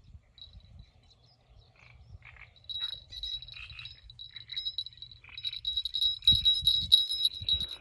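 Small bite-alarm bell on a fishing rod tip jingling as a fish pulls at the line: a few faint tinkles, then more steady ringing, growing loudest and most rapid in the last couple of seconds.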